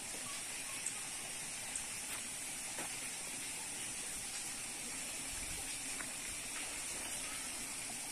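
Steady outdoor background hiss with an even high-pitched band and a few faint ticks, no distinct event standing out.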